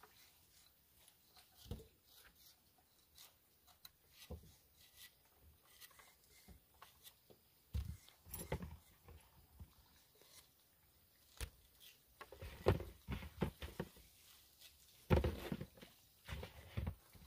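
Light, irregular knocks and rustles of star fruit being trimmed with large curved knives over a wooden board, with louder clusters of thumps about eight seconds in, around twelve seconds and near the end.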